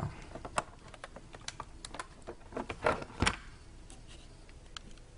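LEGO plastic pieces clicking and knocking together as the model is handled and a part is pushed back into place: irregular light clicks, with two louder knocks about three seconds in.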